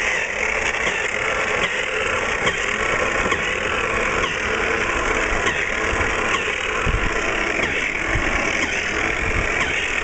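Snow Joe Model 322 electric snow thrower running steadily as its auger churns through snow.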